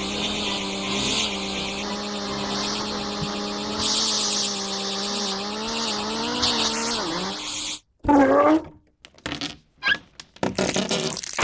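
Steady motor-like drone with a hiss above it; its pitch wavers and sags before it cuts off abruptly about eight seconds in. A short wavering, gliding squeal and several sharp knocks follow.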